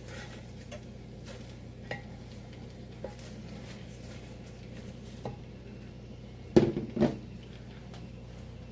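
Cooking utensil and cookware clinking and knocking while vegetables are added to the pot: a few light clicks, then two loud clattering knocks close together about two-thirds of the way in. A faint steady low hum runs underneath.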